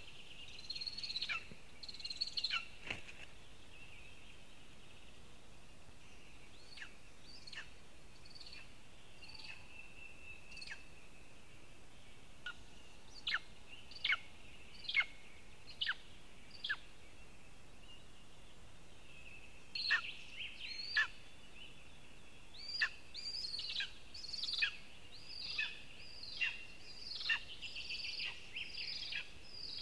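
Lesser spotted eagle calling at the nest: short, sharp, high yelps that fall in pitch. There are a few near the start, a run of five about one a second in the middle, and a longer, quicker run in the last third, as the mate arrives. Faint steady birdsong runs underneath.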